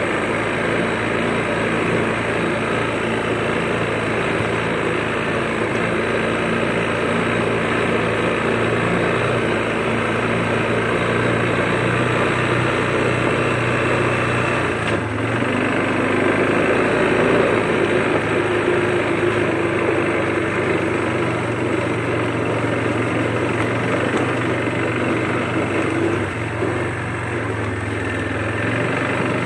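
Quad bike (ATV) engine running steadily while riding along a dirt trail. Its note changes about halfway through.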